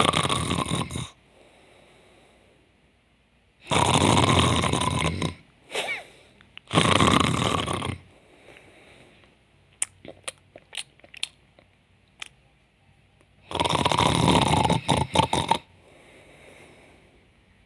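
A woman's deliberately faked snoring: four loud, rasping snores a few seconds apart, with quieter breaths out between them. A few light clicks come in the long gap midway.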